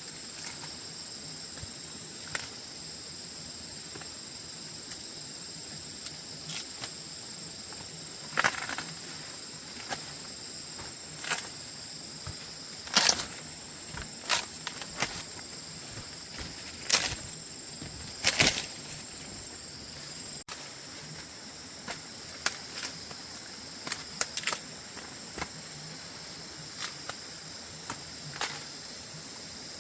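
Insects calling steadily in two high, continuous tones, with scattered sharp snaps and short rustling crackles that are loudest about halfway through.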